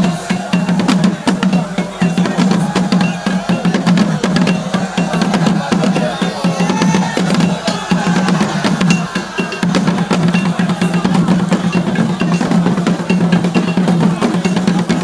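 Drum-led music with dense, steady percussion and many rapid drum hits.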